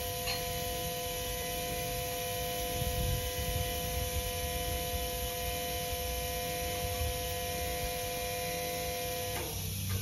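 Steady machine hum from a running automatic aluminium corner crimper, with several high whining tones held over a low rumble. The tones stop about nine and a half seconds in.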